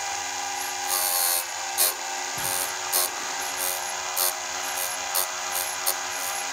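Electric chainsaw chain sharpener running steadily, its grinding wheel touched down again and again onto a raker (depth gauge) for a first test grind. About ten short, high grinding rasps cut through the motor hum, the longest about a second in.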